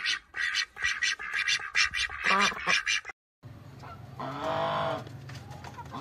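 A rapid run of short, high chicken clucks, then a brief gap and a single drawn-out goose honk lasting about a second.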